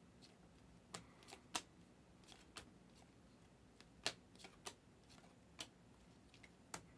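A stack of Donruss Optic basketball trading cards being flipped through by hand, each card slid from the front of the stack to the back: faint, irregular flicks and clicks, about a dozen in a few seconds.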